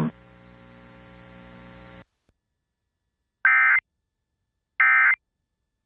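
Emergency Alert System end-of-message signal: two short, identical bursts of SAME digital data tones about a second apart. Before them a faint hum cuts off about two seconds in.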